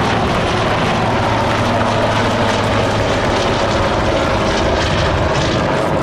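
Airbus Super Puma helicopter in flight: steady, loud rotor and twin turboshaft engine noise.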